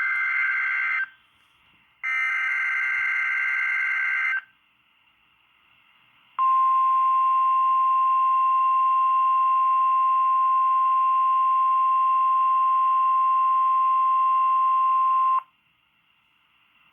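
NOAA Weather Radio emergency alert: the end of one screechy SAME digital header burst, a second burst lasting about two and a half seconds, then after a short gap the 1050 Hz weather radio warning alarm, one steady high tone held for about nine seconds before it cuts off. This is the sequence the weather radio sends to trigger alert radios during the weekly test.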